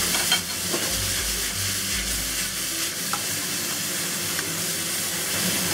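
Cauliflower stems and florets with sliced preserved pork sizzling in a hot oiled wok as they are stir-fried and tossed. Low bumps from the wok being moved come during the first two seconds.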